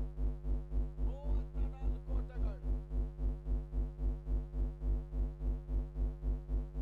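Electronic background music with a heavy, steady bass beat, about three beats a second, over held synthesizer tones.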